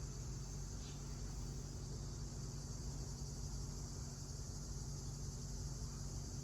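A chorus of crickets chirring, a steady high-pitched band of sound, with a steady low hum beneath it.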